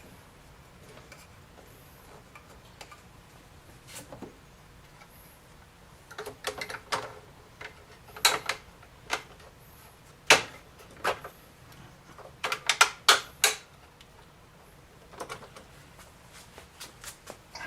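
Irregular sharp clicks and knocks of a rifle being handled and clamped down in a rotating gun vise. They come singly and in quick clusters, loudest around the middle.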